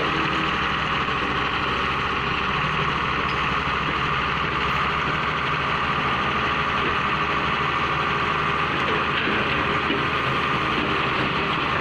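Sumitomo crawler excavator's diesel engine running steadily under load as the machine lifts and swings a bucket of earth.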